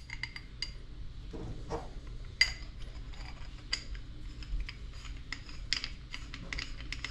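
Light, irregular metal clicks and taps of small unloader valve parts being handled and fitted together, with the bolt put in and tightened.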